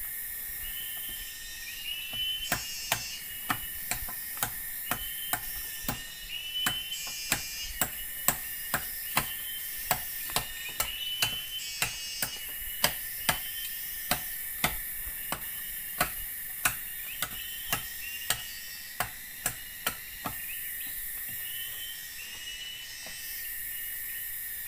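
Steady chopping strokes with a blade, about two a second, starting a couple of seconds in and stopping near the end. Under them is the constant drone of forest insects with a repeated chirping call.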